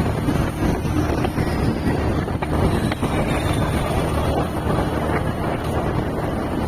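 Wind rushing over the microphone of a moving vehicle, over a steady low rumble of road and engine noise.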